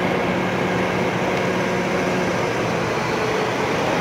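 Volvo B11R double-decker bus's 11-litre straight-six diesel idling steadily, freshly started, with a low even hum.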